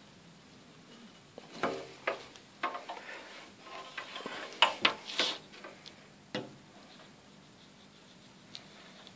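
Hot knife drawn through synthetic canvas on a glass cutting table: an irregular run of sharp clicks and scratchy crackles for several seconds in the middle, then a single click and quiet.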